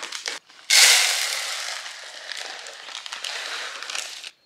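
Dry lentils poured from their plastic bag into a plastic storage container: a sudden loud rush of grains about a second in that slowly thins out as the pour goes on. The plastic bag crinkles briefly before the pour.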